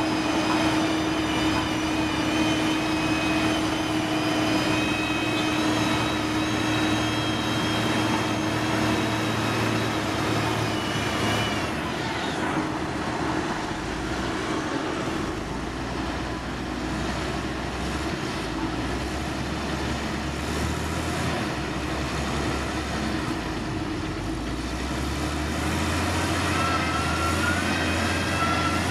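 Heavy diesel road-construction machinery running steadily, its engine pitch dropping about twelve seconds in and rising again near the end.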